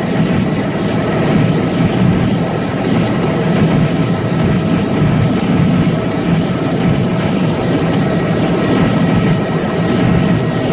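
Helicopter in level flight heard from inside the cabin: a loud, steady rotor and engine drone with a thin constant whine over it.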